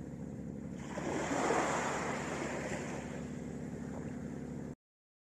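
Sea waves washing onto the beach, one wave breaking about a second in and swelling louder before easing back to a steady wash. The audio cuts off abruptly near the end.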